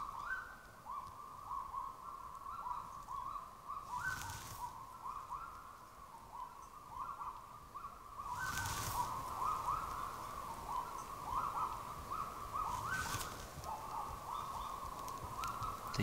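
Several kagus singing together at dawn: a continuous chorus of short, rising, barking notes repeated rapidly and overlapping, with a male and a female duetting, the female's phrase shorter and slightly higher. A few short bursts of noise come through about 4, 8 and 13 seconds in.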